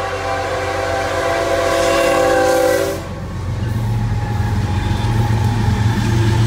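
A BNSF diesel freight locomotive's multi-note air horn sounds one held chord for a road crossing and cuts off about three seconds in. The locomotives' diesel engines then rumble past at close range.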